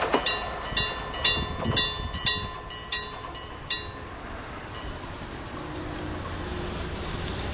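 Warning bell of a mechanical level crossing, struck by a hammer about twice a second, the strokes spacing out and stopping about four seconds in: the changed rhythm of the crossing opening.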